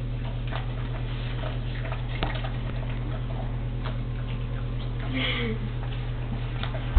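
Boxer dog eating and licking off a plate on the floor: scattered small licking, smacking and plate clicks over a steady hum. A short falling pitched sound comes about five seconds in.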